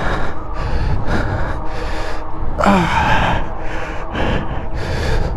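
A person breathing hard and fast right at the microphone, a quick noisy breath about every half second, over a steady low wind rumble. About three seconds in there is a short voiced exhale with falling pitch.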